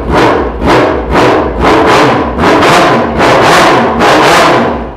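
Yamaha XJ6's inline-four motorcycle engine revved over and over, about two throttle blips a second, to warm it up from cold. The revving stops right at the end.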